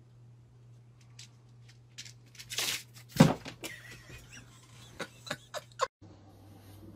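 A cat leaps at an insect on a wall: a brief scrape, then a loud thump about three seconds in, followed by a few light clicks. A steady low hum runs underneath.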